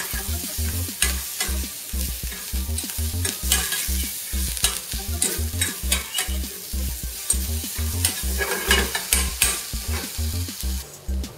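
Sliced eggplant and green pepper sizzling in a stainless steel frying pan on high heat, with a metal fork clicking and scraping against the pan as they are stirred. The stirring stops just before the end.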